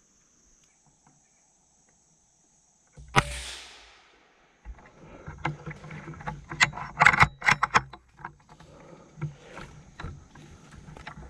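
A single rifle shot about three seconds in: a sharp crack with a short hiss trailing off. It is followed by several seconds of crackling and rustling in leaves and branches.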